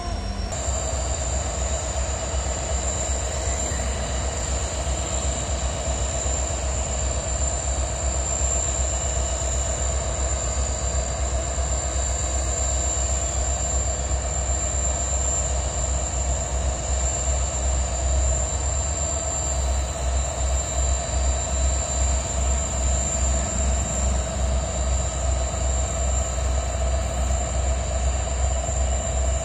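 Twin WDG4 diesel-electric locomotives with EMD 16-cylinder two-stroke engines working under load as they accelerate a goods train: a loud, deep, steady engine rumble with a steady high-pitched whine over it. The low rumble takes on an even pulsing beat about two-thirds of the way through.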